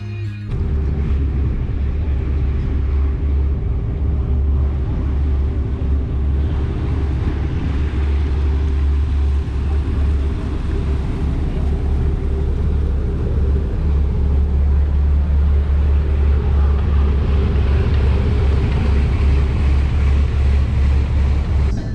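Boat engine running steadily: a loud, even low drone with a constant higher hum over it, and a hiss of wind and water. It starts about half a second in, as the music cuts off.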